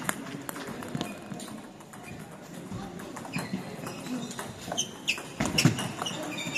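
Celluloid-style table tennis ball clicking off rubber bats and the table during a serve and rally, with a brief voice-like shout about five and a half seconds in, heard in a reverberant sports hall.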